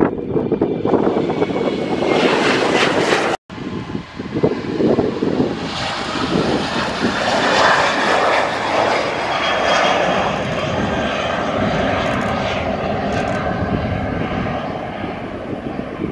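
Jet airliner engines at takeoff power, a loud steady roar with a faint whine. It breaks off abruptly for a moment about three seconds in.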